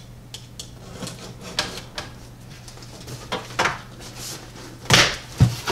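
Large cardboard shipping box being handled and pulled open: a run of scrapes, rustles and small knocks, with a louder crunch about five seconds in.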